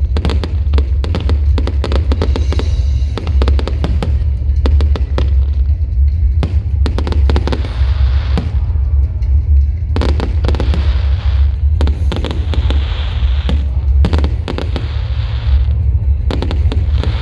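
Fireworks bursting in quick succession over water: many sharp bangs, with stretches of crackling between them.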